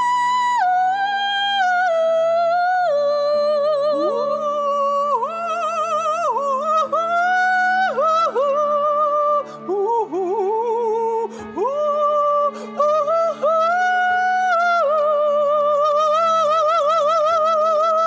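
Wordless high singing over a steady held chord in a stage-musical score. The voice holds long notes, slides between pitches and breaks into fast runs, with a wide vibrato near the end.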